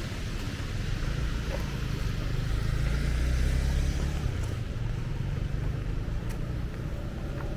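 A motor vehicle passing on a wet street: a low engine rumble that builds to its loudest about three seconds in and then fades, over the steady hiss of heavy rain.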